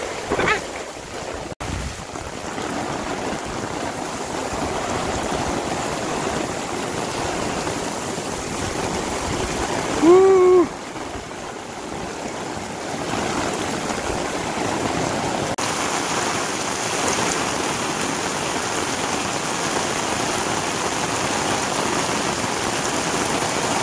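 Heavy rain pouring down in a downpour, a steady rushing hiss of rain on roofs and a flooded street. About ten seconds in, a short pitched sound rises and falls for under a second.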